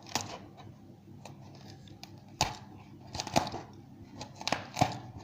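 Foam block being dug into and torn with a small metal tool to pry out lodged airsoft BBs: scraping and crunching broken by several sharp clicks. The loudest click comes about two and a half seconds in.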